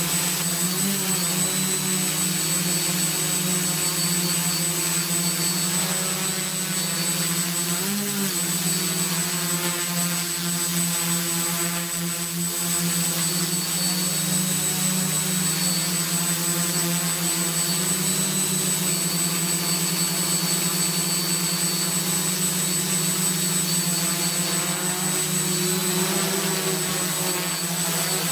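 Multirotor drone's electric motors and propellers humming steadily, picked up close by its onboard camera, with a thin high whine over the drone. The pitch wavers briefly about a second in and again about eight seconds in.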